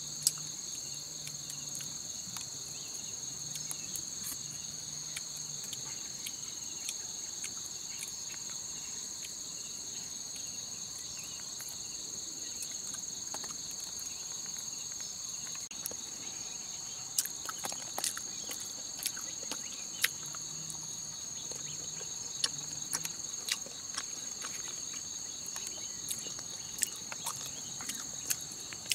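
Steady chorus of forest insects, a continuous high-pitched whine in two pitches, with scattered sharp clicks and taps of chopsticks and eating, more frequent in the second half.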